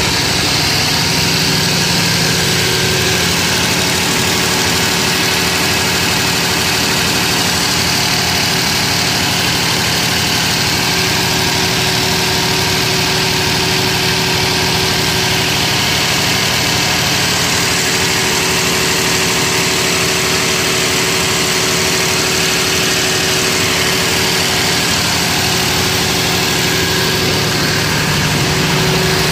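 Cummins diesel engine of a Powerica 750 kVA generator set running at constant speed: a loud, even drone with a steady pitch that does not change.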